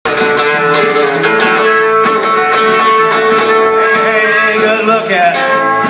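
A country band playing live, a nylon-string acoustic guitar strummed over the band, with one long held note that fades about five seconds in.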